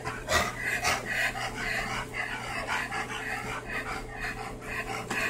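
Dogs, among them a bloodhound, panting and sniffing in quick breathy puffs with their noses down, searching for a scent.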